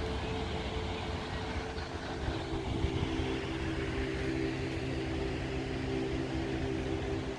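A steady droning hum, several held tones together, over a constant hiss.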